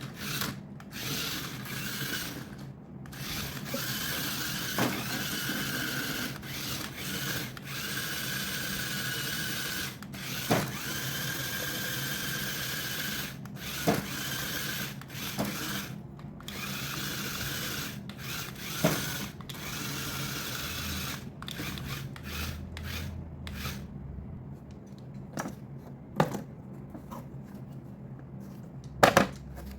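A small electric motor whirring steadily, with sharp clicks and knocks now and then; the whirring dies away about two-thirds of the way through, leaving only the clicks and knocks.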